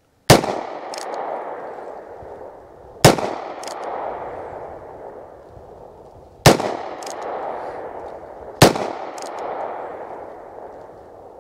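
Four .22 Magnum shots from a Heritage Barkeep Boot single-action revolver with a 1-inch barrel, fired slowly a few seconds apart. Each sharp crack trails off in a long echo, and a short faint tick follows about half a second after each shot.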